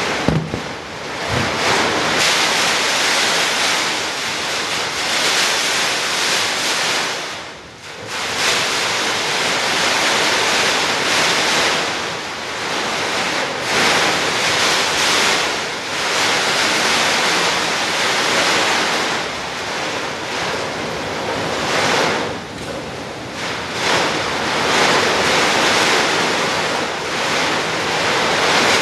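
Hurricane Ike's wind blowing hard in gusts that rise and fall, with a short lull about seven seconds in.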